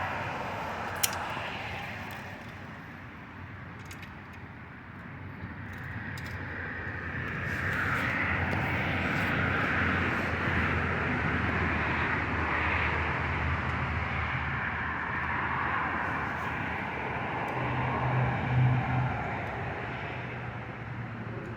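Passing road traffic: a rush that swells and fades, over a steady low engine hum. There is a single sharp click about a second in.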